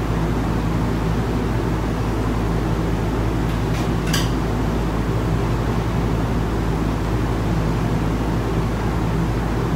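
Steady low background hum, with a brief light clink about four seconds in.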